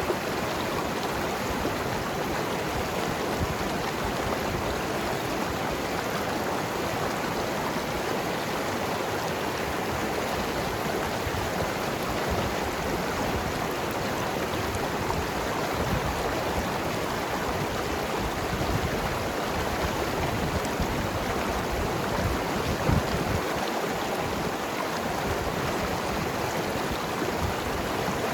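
Mountain river running over rocks: a steady rush of water with gurgling.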